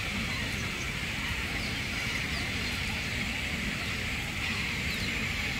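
Steady ambience of birds in a crowded tree roost with painted storks: a dense wash of high bird chatter with a few short, high, falling chirps standing out, over a low rumble.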